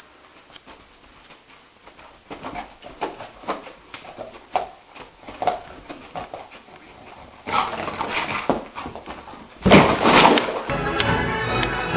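A dog giving a series of short cries, about two a second, followed by a louder, noisier stretch. Music comes in suddenly near the end.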